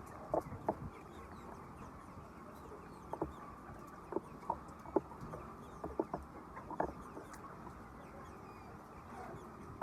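Laying hens clucking: short, scattered clucks at irregular intervals over a steady low background noise.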